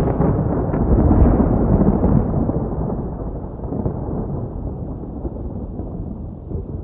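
Thunder: a sharp crack right at the start, then a long low rumble that slowly dies away.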